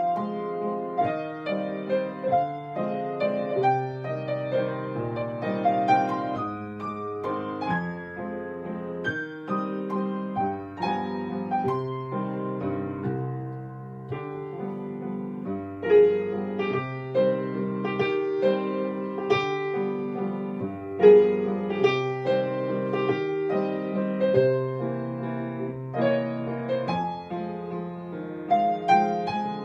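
Solo piano playing a waltz, a melody over a steady repeating bass with chords.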